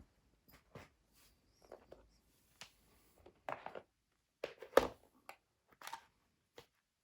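Lock-picking tools and a padlock being handled and moved about on a work surface: scattered light clicks, taps and rustles, with the loudest knock about five seconds in.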